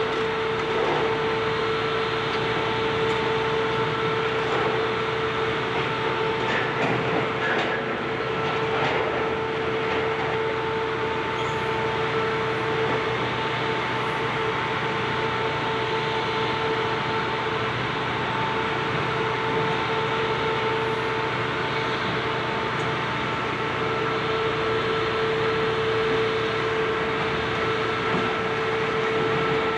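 High-reach demolition excavator working, its engine and hydraulics running with a steady whine. A few cracks and crunches of debris come about seven to nine seconds in.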